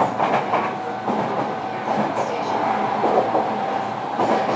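JR Kyushu 305 series electric train running, heard from inside its motor car: the wheels click over rail joints with a steady rumble and a steady tone from the Toshiba permanent-magnet traction motor drive.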